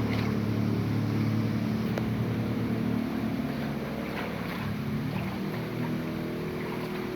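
A motor vehicle engine running with a steady hum, easing off after about four seconds.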